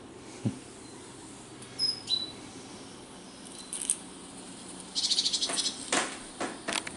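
Small birds chirping from a squirrel video playing through small computer speakers: a couple of short high chirps, then a rapid chattering trill about five seconds in. A few sharp knocks follow near the end.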